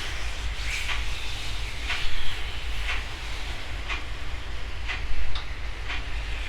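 Footsteps crunching on gravel at a slow walking pace, about one step a second, over a steady low wind rumble on the microphone.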